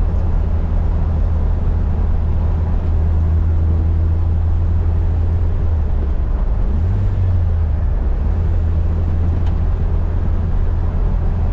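Engine running steadily with a low drone, its pitch rising briefly about seven seconds in.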